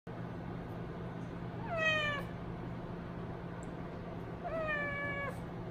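Savannah kitten meowing twice, begging for chicken: a short meow about two seconds in, then a longer one near the end, each dropping in pitch as it ends.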